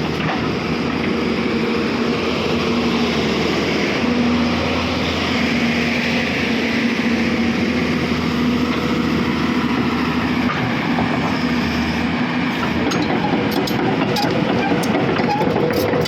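Hyundai 210 hydraulic excavator running steadily with a loud, even engine drone. Several sharp clicks come near the end.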